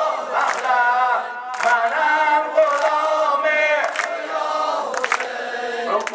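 A male maddah sings a Persian Shia devotional lament (maddahi) through a microphone in long, held, wavering phrases, with other voices chanting along.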